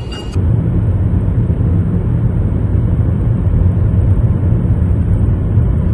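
Steady low rumble of a car's tyres and engine heard inside the cabin while driving at speed on a wet road.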